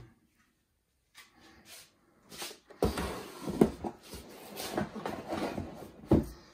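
Cardboard packaging being handled: an inner cardboard box scraping and rubbing against the shipping carton and its foam inserts, with several sharp knocks. It is nearly silent at first, and the handling starts about three seconds in.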